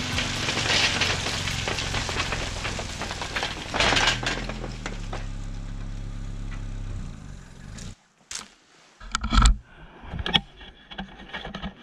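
A vehicle engine running steadily, with a brief louder surge about four seconds in. It cuts off suddenly after about eight seconds, followed by a few scattered knocks and clicks.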